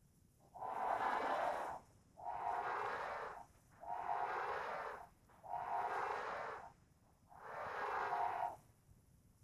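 Elephant trumpeting sound effect, played five times in a row. Each blast lasts about a second, with short gaps between them.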